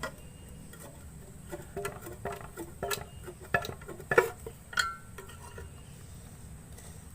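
Irregular metallic clinks and knocks, some ringing briefly, from the cut steel shell of a refrigerator compressor being opened and handled. They cluster in the middle and are loudest about four seconds in.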